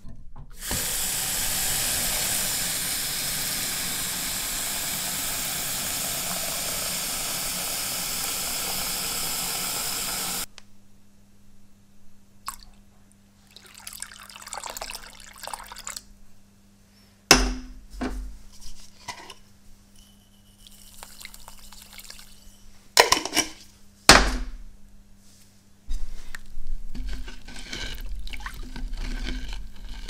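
Tap water running into a plastic tub in a stainless steel sink for about ten seconds, then shut off suddenly. After that come quieter handling noises with a few sharp knocks, and near the end a wooden stick stirring the liquid in the tub.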